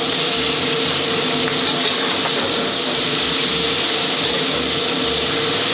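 Pork belly and pickled mustard greens sizzling in a hot wok as they are stir-fried: a steady, loud hiss with a faint steady hum underneath.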